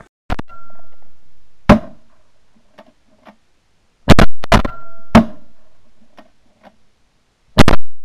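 Shotgun volley at snow geese decoying into the spread: about nine loud shots in uneven groups, several in quick pairs, each trailing off briefly.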